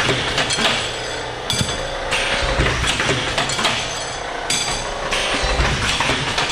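Automatic batch tube cutter running through its cycle on brake and fuel line tubing: machine noise with metal clanks and clinks as tube is fed and cut, the cycle repeating about every three seconds.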